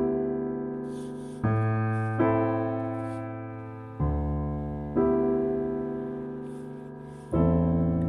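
Slow, calm piano music: a new chord struck every second or two, each left to ring and fade away.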